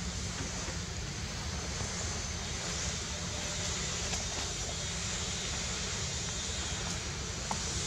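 Steady outdoor background noise, a low rumble under an even hiss, with no distinct events.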